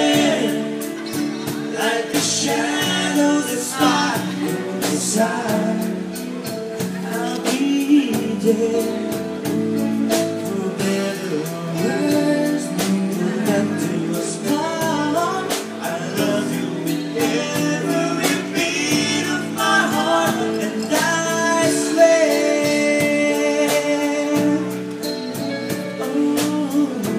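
Live keyboard-led performance of a slow pop ballad: held keyboard chords under a singing voice carrying the melody.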